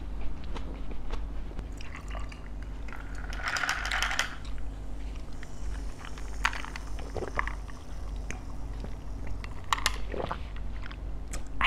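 Close-miked chewing and crunching of crispy bánh khọt (small Vietnamese fried rice-flour pancakes), with scattered sharp bite clicks and a louder stretch of crunching about three and a half seconds in, over a low steady hum.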